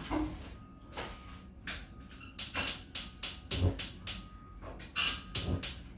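Gas stove's electric igniter clicking in a fast run, about four clicks a second, in the second half, with a few sparser clicks before. The burner is slow to catch, and the knob has to be opened very slowly for it to light.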